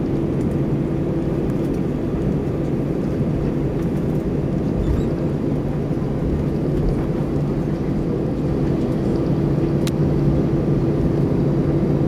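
Steady cabin noise of an Airbus A320 taxiing after landing: the engines running at idle, a constant hum with a low drone and a higher steady tone.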